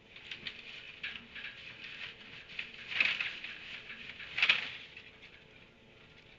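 Small animals squeaking and squealing in a squabble: a run of short, high calls, with two louder squeals about three and four and a half seconds in.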